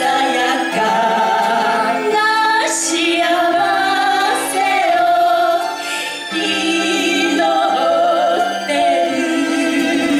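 Two women singing a duet into microphones over a musical accompaniment of sustained notes.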